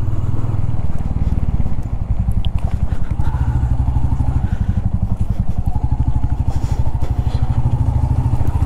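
Royal Enfield Classic 350's single-cylinder engine running under way, a steady rapid thumping beat.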